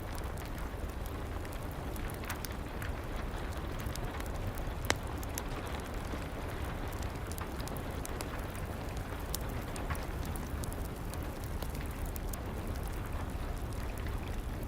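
Steady rain mixed with a wood fire crackling in a fireplace: scattered sharp pops over a constant hiss and low rumble, with one louder pop about five seconds in.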